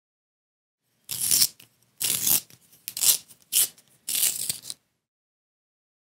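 A pencil being sharpened in a pencil sharpener: five short scraping strokes as the blade shaves the wood, with brief gaps between the turns.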